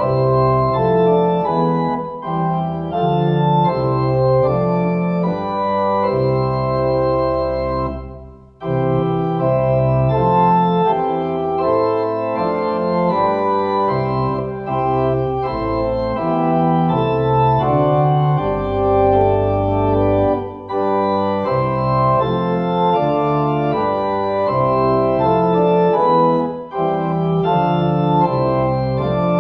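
Organ playing slow, held chords that change every second or so, with a brief pause about eight seconds in.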